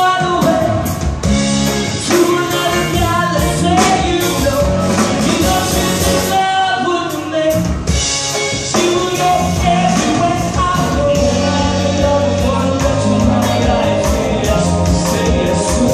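Live band playing a pop song with a singer out front, backed by drum kit, bass guitar and keyboards, loud and unbroken.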